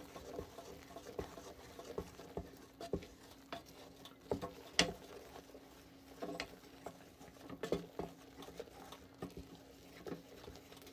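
Wooden spoon stirring marshmallows in a stainless steel saucepan: soft irregular taps and scrapes of the spoon against the pan, over a faint steady hum.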